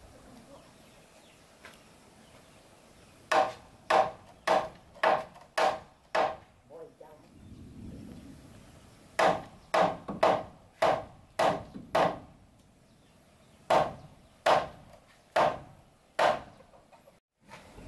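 A tool striking wood again and again, about two sharp knocks a second. The knocks come in three runs: about seven, then six, then four or five, with short pauses between them.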